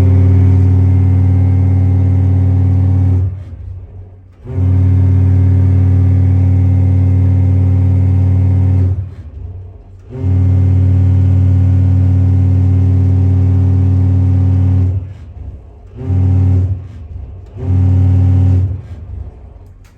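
Deep horn of a Great Lakes freighter sounding five blasts: three long ones of about four seconds each, then two short ones.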